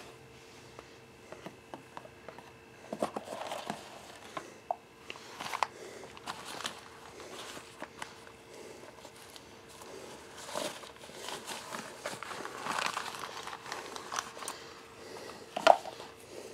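Hands handling microphone packaging and parts: irregular rustling and crinkling of a soft black pouch and box, with small clicks and taps from plastic parts and cable. The sharpest tap comes near the end. A faint steady hum runs underneath.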